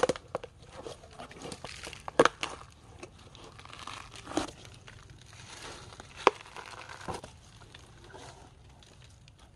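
Elephant biting and chewing a hard fruit: loud sharp cracks and crunches every second or two, with softer crackling between them.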